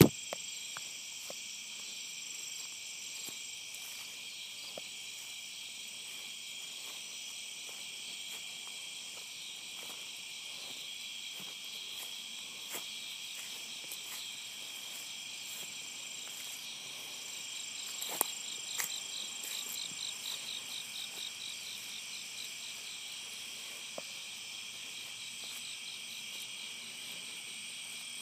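A steady chorus of insects ringing at several high pitches, with a faster pulsing call joining for a few seconds about two-thirds of the way through; a few sharp clicks, the loudest at the start and near the middle.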